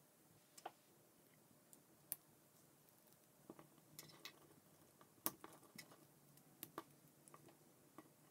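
Faint, scattered clicks of plastic K'NEX rods and connectors being handled and snapped together, about a dozen irregular ticks with the sharpest about five seconds in.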